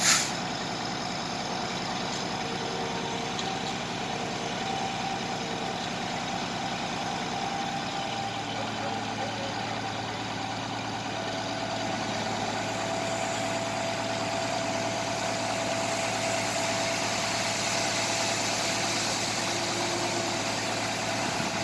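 Concrete truck engine running steadily during a concrete pour, with a sharp click right at the start. About eight seconds in the low drone settles to a steadier hum, and a thin whine joins it from about eleven seconds.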